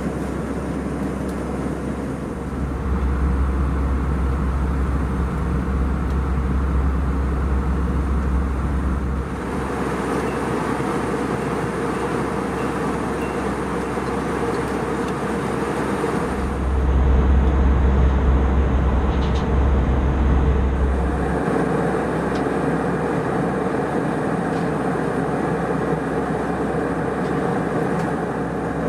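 Steady cabin noise of an Airbus A320 airliner in flight: an even rush of airflow and engine noise over a deep rumble. The rumble steps up abruptly twice, each time for several seconds.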